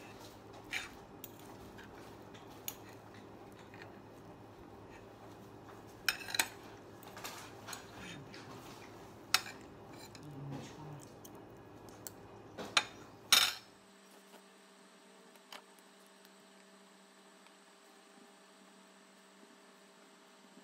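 Metal knife and fork clinking and scraping on a plate: scattered sharp clinks, the loudest around the middle and just before the sound changes, over a low steady room hum. Then a quieter steady hum with only an occasional faint tick.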